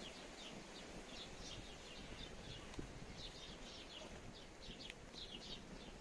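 Small birds chirping: quick, short, high calls repeated several times a second over faint, steady background noise.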